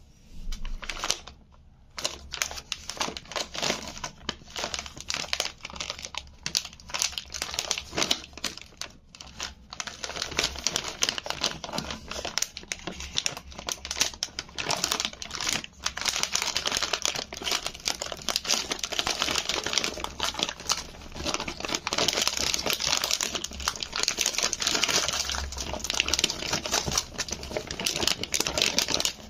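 Crinkling of a foil-lined plastic Cadbury Gems Minis bag and the wrapped sweets inside it as hands open it, rummage through it and tip it out. The crackling is sparse at first and grows denser and louder from about ten seconds in.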